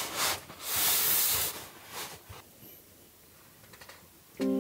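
Rustling of a puffy quilted sleeping bag as someone shifts and sits up under it: several soft swishes over the first two seconds, then quieter. Piano music starts near the end.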